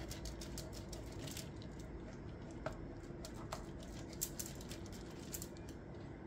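Knife slicing into the side of a whole fish to open pockets for stuffing: faint, irregular small clicks and scrapes.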